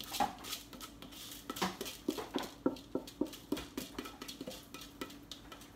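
Rinsed rice scraped by hand off a plastic plate into an Instant Pot's inner pot, with irregular light clicks and taps.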